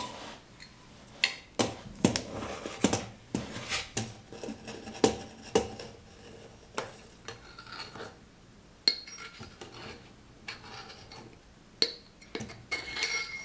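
Metal measuring cup scooping flour from a stainless steel canister: irregular scrapes and clinks of metal against the canister rim as the cup is filled and levelled off, a few with a brief ring.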